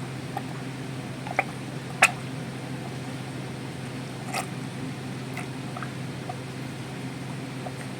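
A cow chewing its feed, with irregular crunching, squishing bites, the loudest about two seconds in, over a steady low hum.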